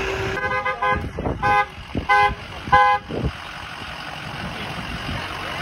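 A vehicle horn honks in about four short toots over the first three seconds, with a vehicle's engine running underneath.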